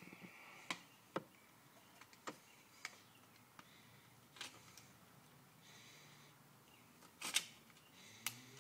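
Faint, scattered clicks and taps of a thin eyeglass screwdriver prying at the plastic latches of a disposable camera's shell. There are about seven clicks, with the loudest about seven seconds in.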